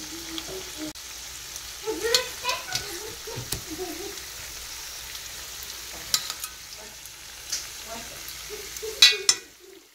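Chicken pieces sizzling in oil and butter in a stainless steel pan as they are turned over with a spoon, which scrapes and clinks against the pan several times, loudest near the end. The braising water has cooked off, so the chicken is now frying in the fat.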